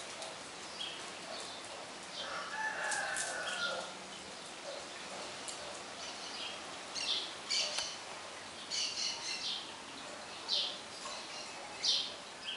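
A rooster crowing once in the distance, about two seconds in, followed by several short, high-pitched sounds in the second half.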